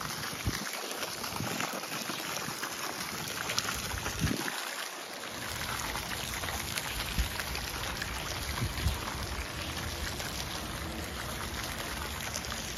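Floating pond fountain spraying water up and letting it fall back onto the pond surface, a steady splashing.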